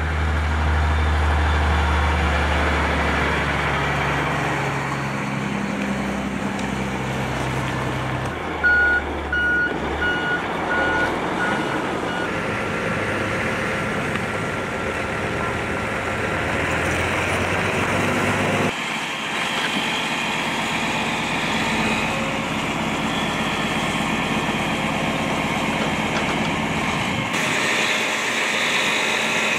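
Loaded log truck's diesel engine running as it pulls into the yard, then a backup alarm beeping about six times, evenly spaced, starting about nine seconds in. Engine and machinery noise carries on through the rest.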